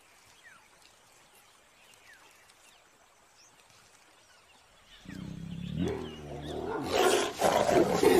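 Tiger growling, starting about five seconds in and building into loud snarls near the end. It is a warning at another tiger over a small kill.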